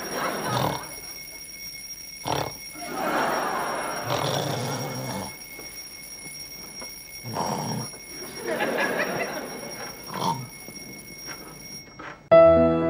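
A man snoring in long breaths over an alarm clock's steady high ringing. The ringing cuts off near the end and piano music starts.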